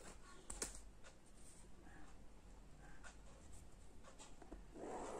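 Faint scratching of a ballpoint pen writing on paper, with a couple of sharp clicks in the first second. A short soft rustle comes near the end as a plastic ruler is laid across the page.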